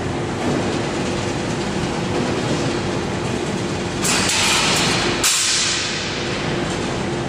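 Steel bar straightening and cutting machine running: a steady mechanical clatter with a steady hum. About four seconds in a louder hissing rush starts, stops abruptly a second later, and is followed by a shorter hiss that fades.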